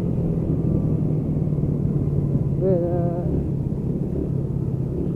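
Motorcycle riding at road speed: a steady low engine and road rumble with little wind hiss. A brief wavering voice-like hum comes in about three seconds in.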